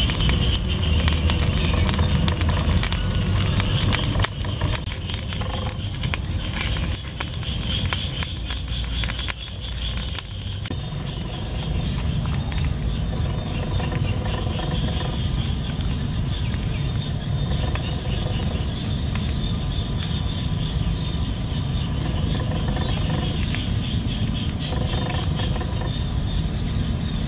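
Small open wood fire crackling, with sharp clicks and snaps of sticks being handled, thickest in the first ten seconds, over a steady low rumble outdoors.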